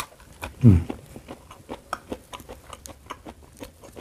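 Close-up mouth sounds of someone chewing crunchy food, many quick sharp clicks, about three or four a second. A short, loud low vocal sound falling in pitch comes about two-thirds of a second in.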